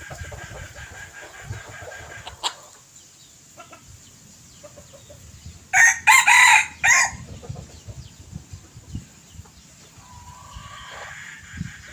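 A red junglefowl cock crowing once, about six seconds in: a short, loud crow in three parts. A fainter crow from another bird follows near the end.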